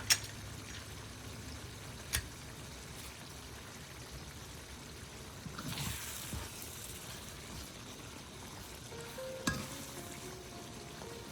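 Food frying with a steady sizzle in a karahi, with a few sharp clinks of a utensil against the pan as it is stirred.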